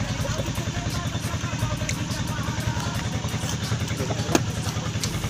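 A small engine running steadily at idle, a low even pulsing drone.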